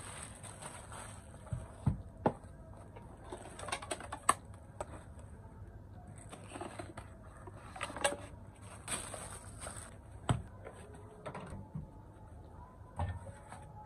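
Scattered clicks, knocks and plastic rustling as food in plastic bags and a foam takeaway box is handled and put into a microwave, with a knock near the end as the microwave door is pushed shut.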